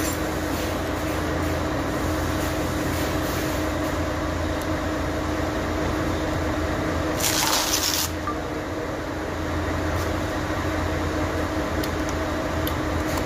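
Steady mechanical hum of running machinery, with a short hiss about seven seconds in.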